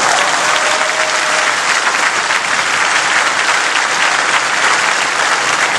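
Large crowd applauding, a dense, steady wash of clapping that holds at full strength throughout.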